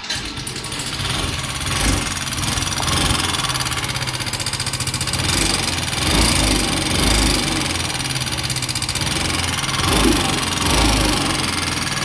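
Yamaha Ray ZR scooter's single-cylinder four-stroke engine running with a bad noise, swelling in loudness several times. The mechanic calls this noise the fault, together with the engine smoking and using up its oil, a sign of internal engine damage.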